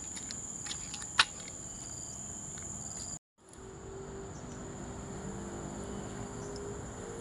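Steady high-pitched insect chorus, a continuous buzzing drone of tropical insects such as cicadas or crickets, with a few light footstep clicks in the first seconds. It breaks off briefly about three seconds in, then resumes with a faint low hum underneath.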